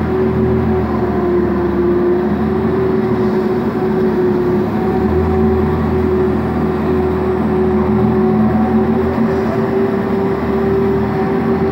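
2007 Zamboni 552 ice resurfacer running steadily as it drives across the ice, a constant machine drone with a whine held on one pitch.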